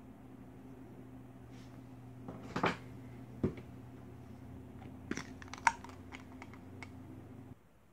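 Clear plastic syringe barrels and plungers handled and fitted together, giving a short rattle, a knock and a run of light plastic clicks. A steady low hum runs underneath and cuts off suddenly near the end.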